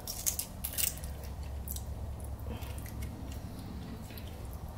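Fingers picking and cracking Dungeness crab shell in a sauce-filled glass bowl, with wet squishing and a few sharp cracks and clicks in the first two seconds. A low steady hum sits underneath.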